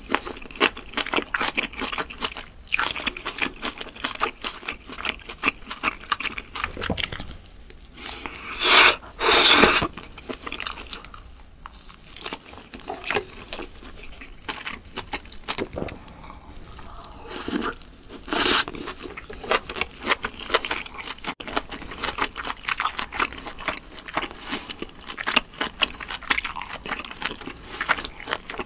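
Close-miked chewing and crunching of grilled skewered meat, a dense run of wet, irregular crunches and mouth noises, with a few louder noisy bursts about a third of the way in and again a little past halfway.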